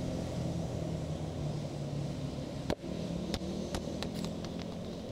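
Steady low rumble of road traffic, with one sharp click a little under three seconds in and a few faint ticks after it.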